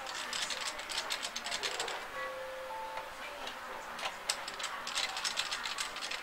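Ratcheting screwdriver clicking rapidly as the case screws of a media player are backed out. The clicking comes in two runs, with a pause of about two seconds between them.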